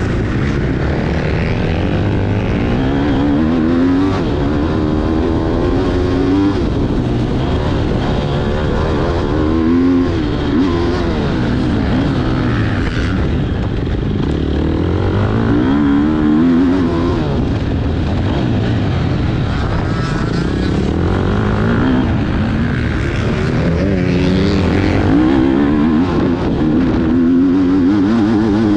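Motocross bike engines revving up and dropping off again and again, their pitch climbing and falling in repeated sweeps.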